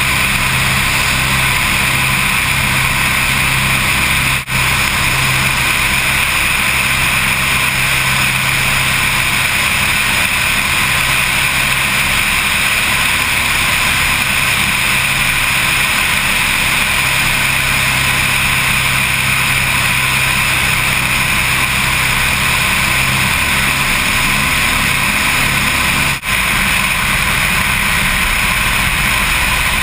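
Steady drone of a twin-engine Aircam's engines and propellers in low flight, mixed with rushing air, heard from a camera mounted on the float. The sound dips briefly twice, about four seconds in and near the end.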